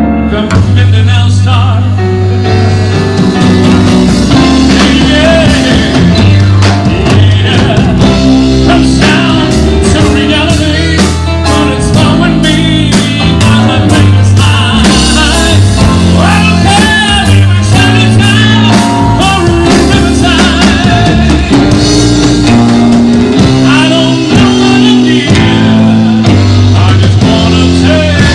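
Live band playing a slow jazz-pop ballad, with a saxophone carrying the melody over keyboard, electric guitar, bass notes and drum kit with cymbals.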